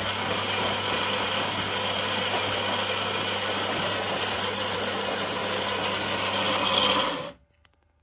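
The built-in grinder of a Philips 5400 Series bean-to-cup coffee machine grinding coffee beans at the start of a brew: a loud, steady grinding whirr over a motor hum that stops abruptly about seven seconds in.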